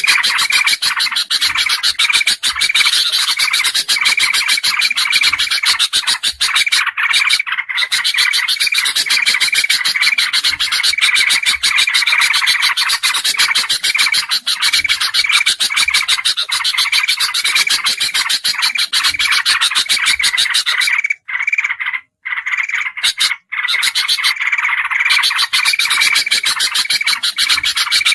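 A dense, unbroken chatter of bulbul calls from a bird-lure track, mixing kutilang emas, kutilang jambul and trucukan (yellow-vented bulbul), with a brighter note repeating about twice a second. The chatter drops out briefly a few times about three-quarters of the way through.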